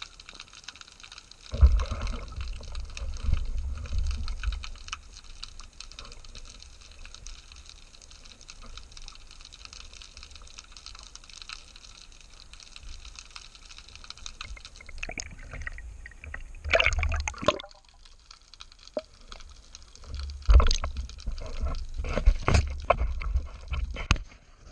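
Water heard from a submerged camera: a constant crackle of tiny clicks, broken by several loud, low rushes of churning water and bubbles. The rushes come about two seconds in, again around three-quarters of the way through, and repeatedly near the end as the camera nears the surface.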